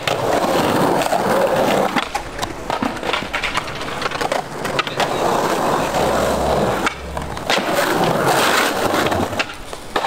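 Skateboard wheels rolling on paved pavers, broken by the sharp clacks of the board popping and landing on tricks. There are several separate runs.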